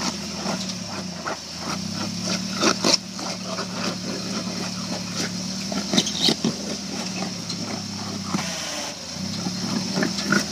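Rock crawler's engine running steadily at low revs while its tires work against a rock ledge, with scattered knocks and scrapes. The loudest knocks come about three seconds in and again about six seconds in.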